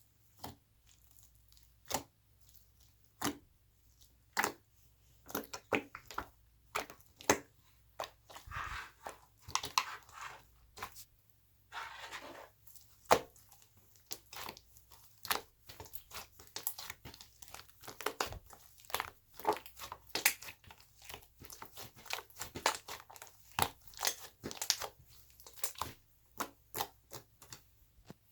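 Chocolate-banana 'cake' slime being pressed, stretched and squished by hand, giving irregular sharp clicks and pops, with crinkly crackling stretches around a third of the way in.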